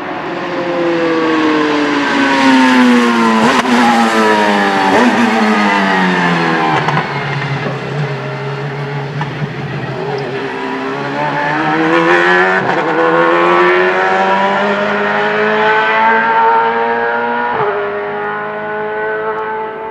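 Pescarolo 01 LMP1 prototype's Judd V8 racing engine on track: it slows through several downshifts, each marked by a sharp blip, then pulls away at full throttle, rising in pitch through upshifts.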